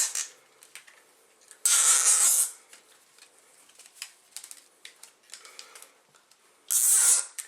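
Nylon zip ties pulled tight through their locking heads: two quick ratcheting zips, one about two seconds in and one near the end, with small clicks and handling noises between.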